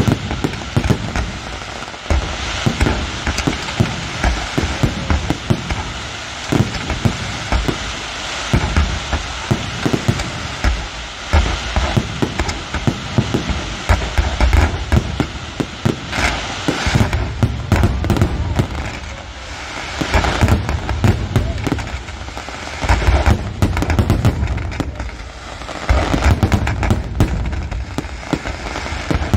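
Pirotecnia del Mediterraneo's aerial fireworks going off in a dense, continuous barrage: deep booms from shell bursts come one on top of another, over constant fine crackle, with the heaviest volleys in the second half.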